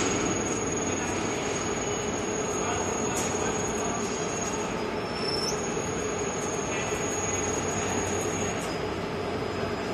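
Roll forming machine running: its forming rollers and chain drive turning with a steady mechanical rumble and a thin high whine that steps slightly in pitch a few times.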